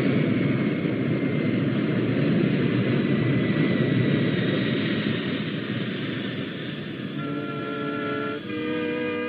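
Eagle transporter spacecraft engines as a sound effect: a steady, dense rumble with a faint, slowly falling whine as the craft descends to land. It eases off over the last few seconds while sustained music notes come in about seven seconds in.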